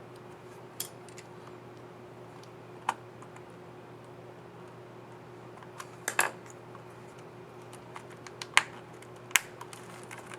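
Scattered sharp plastic clicks from a Dell XPS 7590 laptop keyboard's scissor-switch keycaps being pressed and snapped into place, a handful spread out, with a quick double click about six seconds in.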